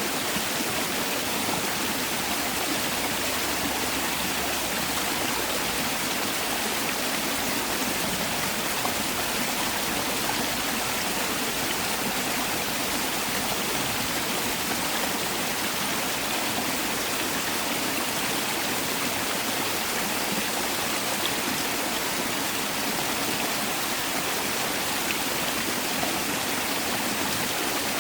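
Mountain stream rushing steadily over rocks in a steady, even hiss-like wash of water.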